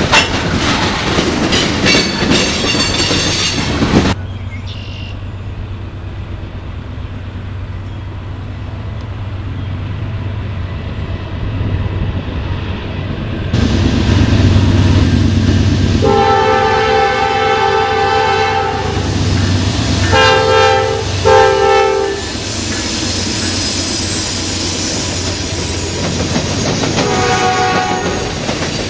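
Freight train rolling past with wheels clattering, cut off abruptly about four seconds in, followed by the low rumble of an approaching diesel locomotive. The locomotive's multi-chime air horn sounds one long blast, two short blasts, then a fainter blast near the end.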